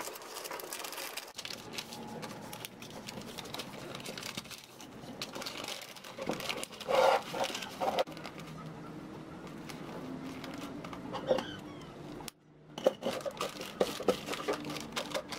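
Sheets of wrapping paper rustling and crinkling as hands fold them around a painted board and tie the parcel with twine. There are louder bursts of crinkling about seven seconds in and again near the end.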